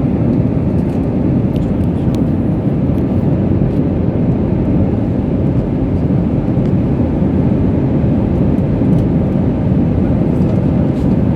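Steady rumble of an airliner in flight as heard inside the cabin: engine and airflow noise, low and even.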